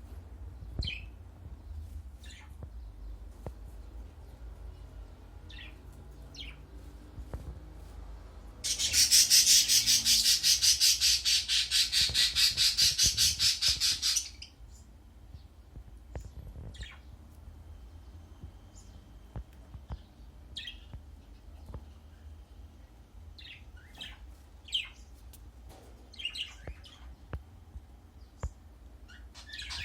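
Baby budgerigar calling: short, scattered chirps, with a loud, rapid, raspy run of calls lasting about five seconds near the middle.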